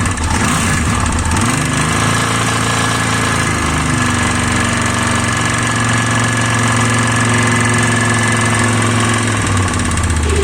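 Stels Viking snowmobile's V-800 engine running, revved up from idle about 1.5 s in, held at raised revs, and dropping back to idle near the end. The engine knock shows only at raised revs, not at idle, and is traced to the front cylinder.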